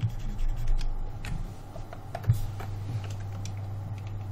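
Scattered clicks and taps from a computer keyboard and mouse, one louder knock a little past halfway, over a steady low hum.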